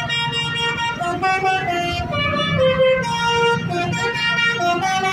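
Tour bus basuri horn, a multi-tone musical air horn, playing a melody whose notes step up and down every half second or so, over a low rumble.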